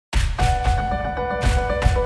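Background music with held notes over a bass and heavy drum hits, starting abruptly.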